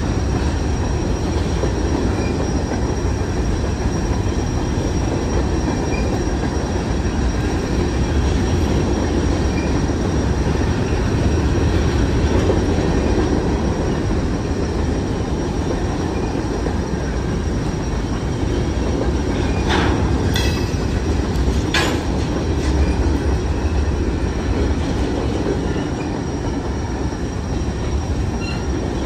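Covered hopper cars of a long freight train rolling past close by: a steady rumble of steel wheels on rail, with two brief sharp sounds about two-thirds of the way through.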